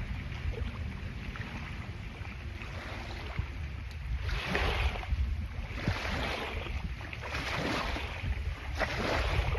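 Wake waves from a passing boat washing onto the lake shore in repeated swells about every second and a half, starting about four seconds in, over steady wind rumble on the microphone.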